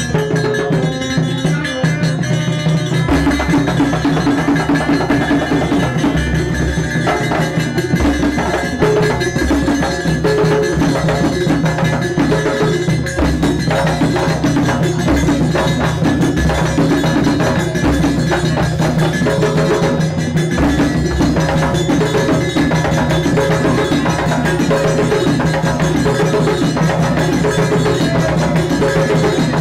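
Traditional music with drums and other percussion playing a steady rhythm under a pitched melody; the low drum beats come in about three seconds in.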